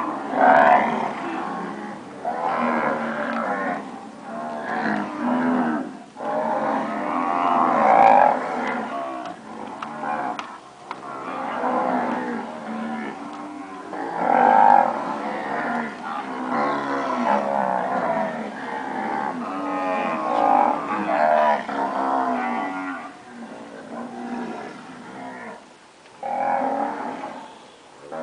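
A herd of Nelore cows mooing, many loud calls overlapping one after another almost without pause.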